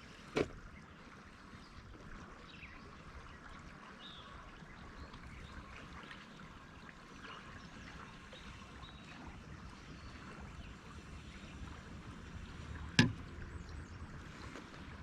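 Faint steady flow of river water, with two sharp knocks: a short one about half a second in and a louder one about thirteen seconds in.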